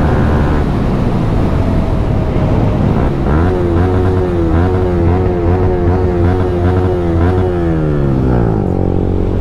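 Yamaha R15 M's single-cylinder engine, fitted with a loud aftermarket exhaust, running while the bike is ridden at speed. The revs climb sharply about three seconds in, hold with a wavering pitch for several seconds, then drop away and settle near the end.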